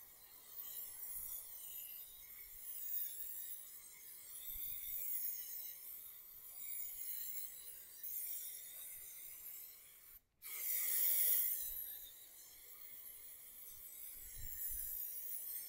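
Aerosol can of Raptor bed liner spraying: a steady hiss that swells and fades as the can sweeps along the panel. It breaks off for a moment about ten seconds in, then comes back louder.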